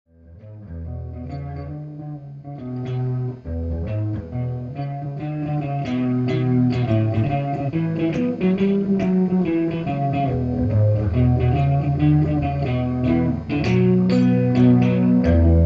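Background instrumental music led by guitar with a bass line, fading in at the start and building, with a steady beat from a few seconds in.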